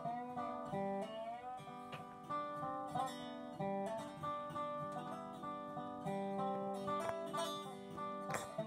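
Lap-style slide guitar, an acoustic guitar laid flat and played with a slide bar, playing a slow melody of held plucked notes that glide up and down between pitches. The tune is a bagpipe tune learned from hearing it on the pipes.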